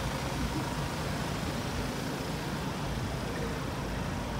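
Busy city-street traffic: a steady rumble of engines and tyres from passing vehicles.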